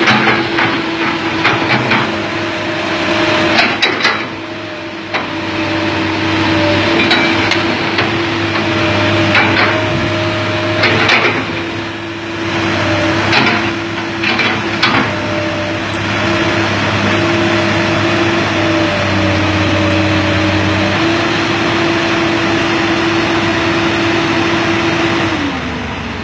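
Komatsu PC200 excavator's diesel engine running under hydraulic load with a steady high whine from the hydraulic system, while sharp metal clanks and knocks come in clusters over the first half. Near the end the whine bends down in pitch and the sound drops as the load comes off.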